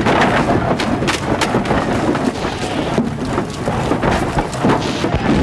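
Battle sound effects of cannon and rifle fire: a continuous rumble of explosions with many sharp cracks and bangs over it.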